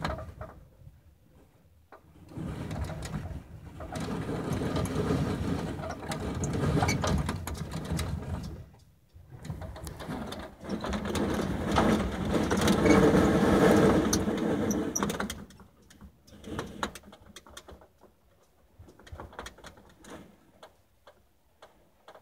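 Strong wind gusts buffeting a small fiberglass travel trailer, heard from inside. Two long surges of rushing wind noise come in quick succession, then it eases to a quieter stretch with scattered clicks and rattles near the end.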